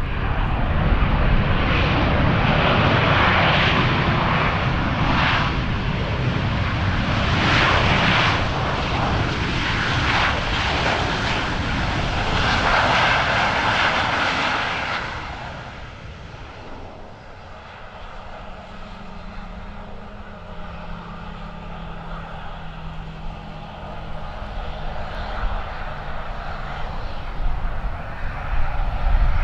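Jet airliner engines roaring loud as an aircraft passes on the runway, fading away about halfway through. A quieter low engine hum is left after that, and the roar builds again near the end as another aircraft approaches.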